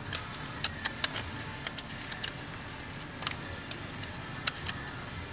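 Irregular sharp clicks and light scraping of a hand tool working in the intake ports, chipping carbon buildup off the intake valves of a Volkswagen CCTA engine.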